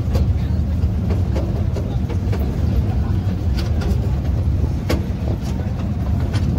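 Amusement-park mini train rolling slowly along its track: a steady low rumble with a few sharp clanks from the carriages.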